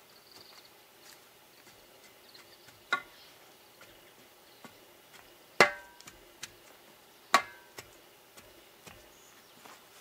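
Three sharp knocks a couple of seconds apart, each with a brief ringing tone; the middle one is the loudest. A few faint ticks fall in between.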